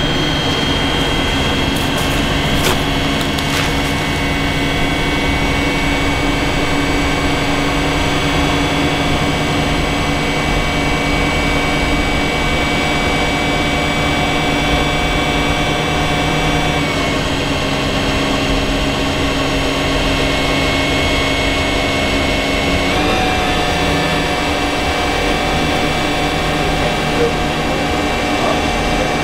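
Machinery running steadily with a loud hum. Its pitch drops slightly about 17 seconds in and rises back up about 23 seconds in.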